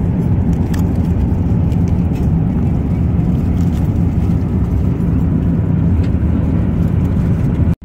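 Steady rumble and hiss of an Airbus A350-900's cabin in flight, engine and airflow noise, with a few faint crinkles of plastic wrap and foil as a meal tray is unwrapped.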